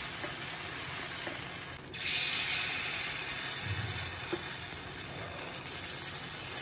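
Appam batter sizzling as it is spooned into the lightly oiled cups of a hot appam pan; the hiss dips briefly and comes back a little louder about two seconds in.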